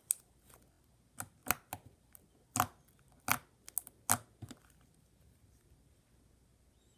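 Slime being squished and poked in the hands, giving about six sharp pops and clicks over the first four and a half seconds, then stopping.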